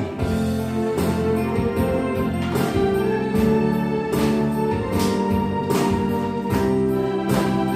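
Instrumental break of a Korean trot song backing track: sustained keyboard chords over a steady beat, with no singing.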